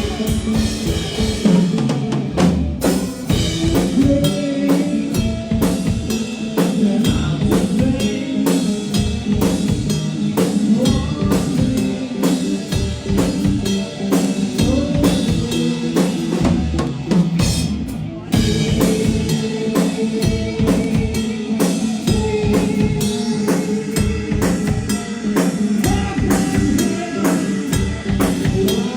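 Live rock band playing an instrumental passage: a drum kit keeps a busy, steady beat of kick, snare and rimshots over sustained bass and guitar notes, with a brief drop in the drumming about two-thirds of the way through.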